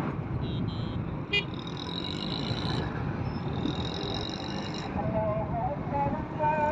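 Steady street traffic noise, with a sharp click about a second and a half in, high-pitched toots in the middle, and voices calling near the end.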